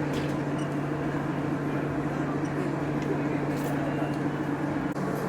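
Steady low mechanical hum with an even background hiss.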